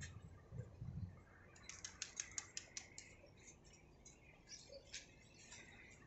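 Faint, quick chirping and clicking of birds, densest a second or two in and then sparser, with a few low bumps in the first second.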